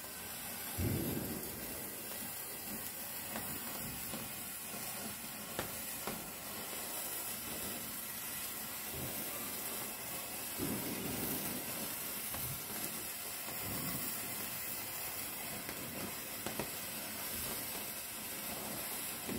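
Hand-held stick sparkler firework burning with a steady spitting hiss as it sprays sparks, with a few faint crackles.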